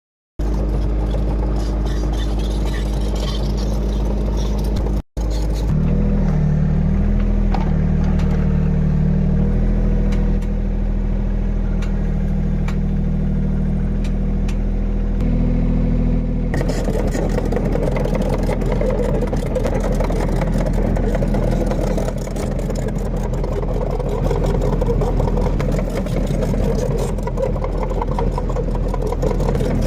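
Hitachi excavator's diesel engine running steadily under work, its pitch shifting a little. The sound breaks off briefly about five seconds in and changes abruptly at about sixteen seconds, as between spliced clips.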